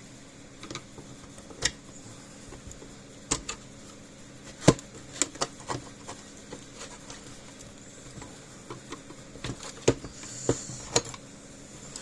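Scattered small clicks and taps at irregular intervals as hands handle and adjust a solar fence charger's circuit board and housing, with one sharper knock about halfway through.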